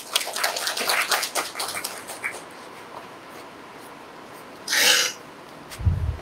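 Scattered audience applause that dies away after about two seconds. It is followed by a short hissing burst a little before five seconds in and a low thump near the end.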